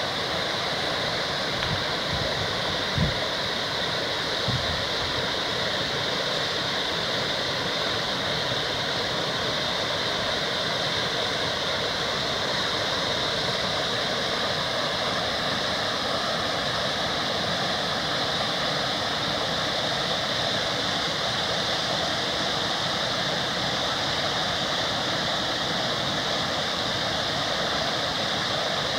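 Waterfall rushing steadily, with a brief low thump about three seconds in.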